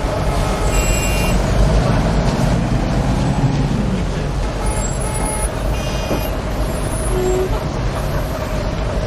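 Heavy city street traffic with a steady din of engines and tyres. A large vehicle's engine rumbles louder for a few seconds near the start, and brief high-pitched squeals sound twice.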